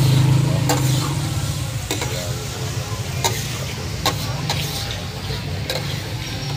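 A metal spatula scrapes and clacks against a large flat tawa griddle as kebab pieces are stirred and turned in shallow oil, with a steady sizzle underneath. The clacks come about once a second. A low hum stops about a second in.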